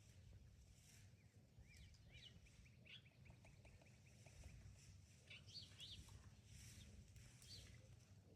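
Faint songbirds calling: scattered short high chirps, with a quick run of repeated notes in the first half, over a steady low rumble.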